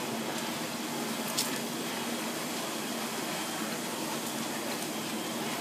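Steady rushing outdoor din of a burning apartment building under hose streams, with a faint low hum. A single sharp click comes about one and a half seconds in.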